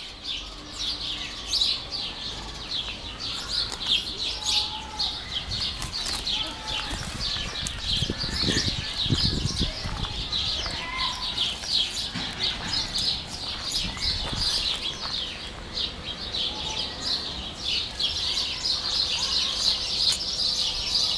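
A chorus of small birds chirping in a fast, unbroken run of high chirps. A low rumbling noise comes in briefly about eight to ten seconds in.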